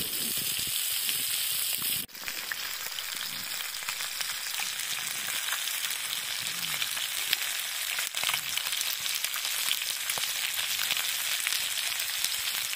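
Burbot fillets and onion frying in hot oil in a pan over a campfire: a steady dense sizzle with fine crackling pops, briefly breaking off about two seconds in and again near eight seconds.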